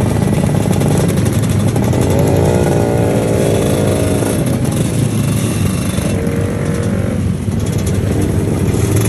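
A procession of classic two-stroke scooters, Vespas and Lambrettas, riding past with many engines running at once. About two seconds in, one engine's pitch rises as it revs up and then holds. Another engine tone stands out around six seconds in.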